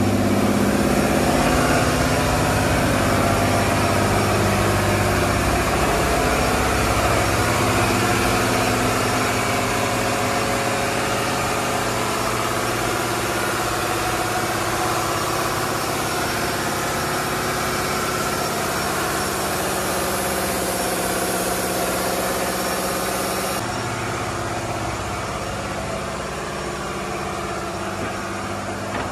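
A riverboat's inboard diesel engine running steadily, heard loud and close inside the engine room; it eases slightly near the end.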